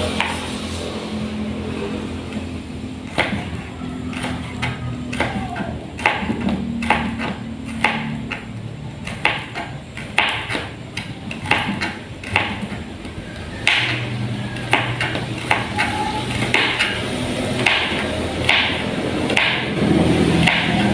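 Kitchen knife chopping carrot on a plastic cutting board: an uneven run of sharp taps as the blade strikes the board, a few a second, while the carrot is diced small.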